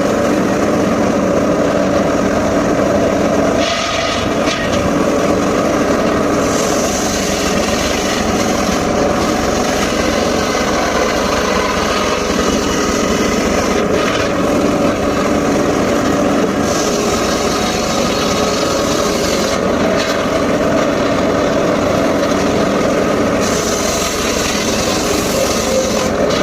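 Homemade circular saw running steadily, its blade cutting through teak wood in three long passes. A high hiss rises over the machine's drone during each cut and falls away between them.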